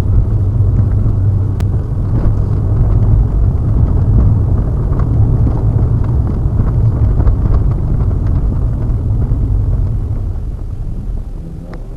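Car driving, its engine and road noise rumbling steadily as picked up inside the cabin by a dashcam microphone; the rumble eases off over the last couple of seconds.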